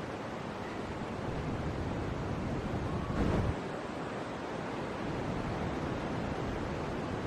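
Steady rushing noise, with a brief louder swell about three seconds in.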